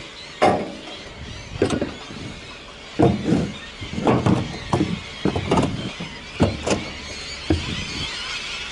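Metal pitchfork tines scraping and squealing across the steel floor of a small utility trailer as wet grass clippings are pushed out, in a series of short uneven strokes about one or two a second.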